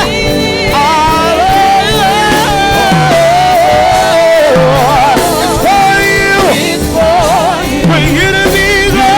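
Gospel worship song: sung melody with vibrato and ad-lib runs over a full band accompaniment.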